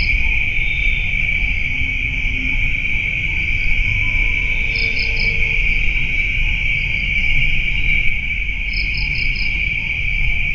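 Night insect chorus: a steady high-pitched cricket trill runs throughout, with short bursts of three or four quick chirps twice, over a low rumbling background.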